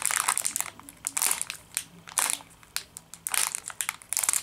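Plastic blind-bag toy packet crinkling in irregular bursts as it is squeezed and pulled open by hand from a small hole.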